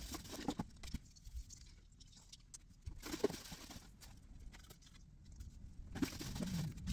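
Crinkly rustling of plastic Christmas decorations being rummaged through in a cardboard box, in three bursts (just after the start, about three seconds in, and near the end) with light clicks and taps between.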